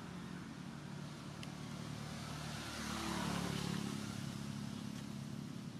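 A motor vehicle engine running with a steady hum, swelling to its loudest about three seconds in and then easing off, as a vehicle passes by.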